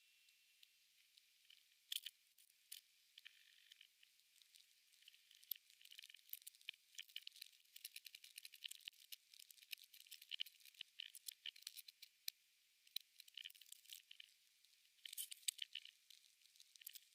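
Praying mantis chewing a locust: faint, irregular crisp crunching and clicking. The crunching grows busier after the first few seconds.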